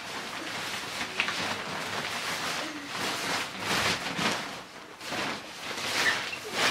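Large fabric playhouse cover rustling and swishing as it is spread out and pulled about by hand, in a run of irregular soft swishes.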